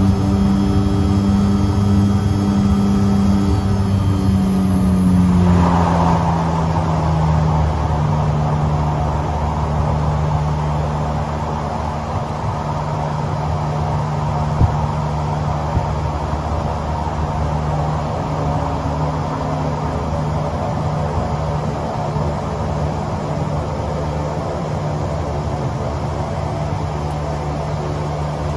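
Twin Garrett TPE331-12 turboprop engines of a Fairchild Swearingen Metroliner, heard from inside the cockpit during the landing rollout. Their drone and high whine drop in pitch about five seconds in as power comes back, then run on steadily at the lower setting, with a single click midway.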